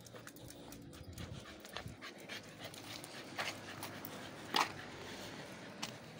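A dog panting while out walking on a leash, with footsteps on asphalt and scattered clicks, the loudest a sharp click about four and a half seconds in.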